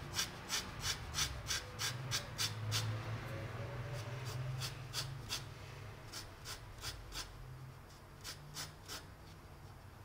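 Pencil scratching on drawing paper in a quick run of short, repeated strokes, several a second, as the fin is shaded and defined; the strokes thin out and grow fainter after about three seconds.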